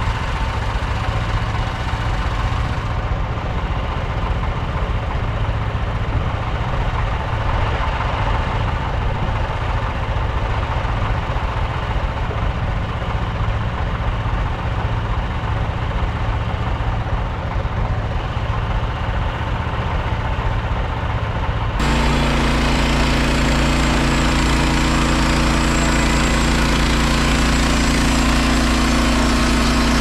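An engine running steadily at idle. About three-quarters of the way through, the sound switches abruptly to a slightly louder engine note with a different, deeper pitch pattern.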